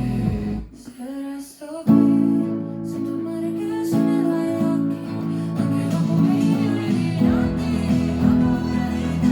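Pop song outro played on guitar, with sustained chords. The music drops away briefly about a second in, then comes back in full a little under two seconds in.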